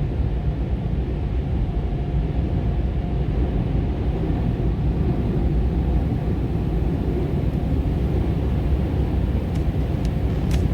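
Steady low rumble of a touchless automatic car wash's machinery, heard from inside the car, with a few sharp ticks near the end.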